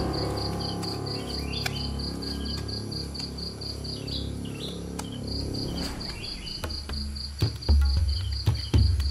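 An insect chirping in an even pulsing rhythm, about five pulses a second, with a short break midway and a few faint bird chirps. Near the end come a few loud low thumps.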